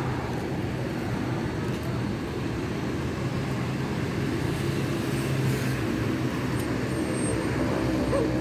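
Steady street traffic: vehicle engines running in a continuous low hum, with one engine's tone growing more prominent near the end.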